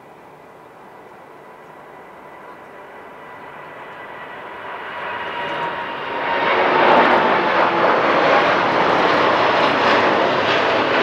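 Jet airliner passing low overhead. Its engine noise grows from a distant whine with steady high tones into a loud roar that peaks about six to seven seconds in and stays loud.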